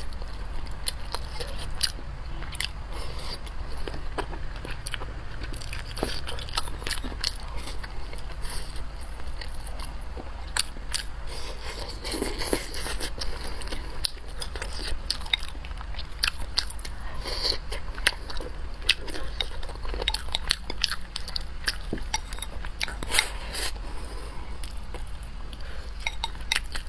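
A person eating close to the microphone: chewing and biting, heard as many irregular small clicks and mouth noises over a steady low hum.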